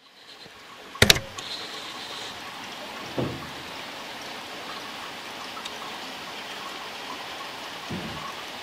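Steady hiss of rain fading in, with a sharp knock about a second in and two softer thumps later.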